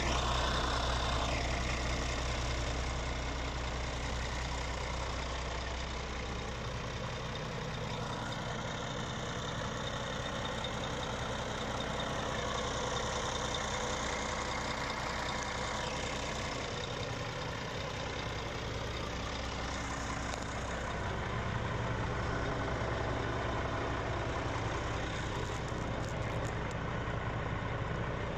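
Scania R450 truck's 13-litre inline-six diesel engine idling steadily.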